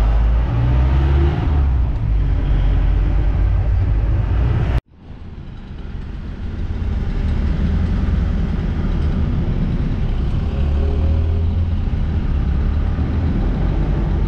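Jeep engine running, heard from inside the cab as a steady low rumble. About five seconds in the sound cuts off suddenly, then fades back in as steady engine and road noise of vehicles driving.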